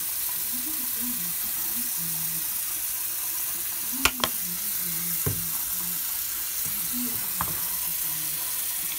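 Steady hiss of water running from a bathroom sink tap, with two sharp clicks about four seconds in and a couple of fainter clicks later.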